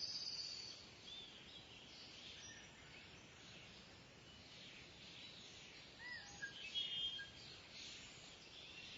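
Birds calling: short high-pitched chirps and whistled calls over a steady outdoor background hiss, with a loud high trill at the start and a louder cluster of calls about six to seven seconds in.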